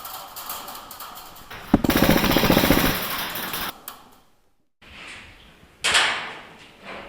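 HPA airsoft gun firing a full-auto burst of about two seconds, starting a couple of seconds in, over fainter rapid clicking of shots. A short loud rush of noise follows about a second before the end.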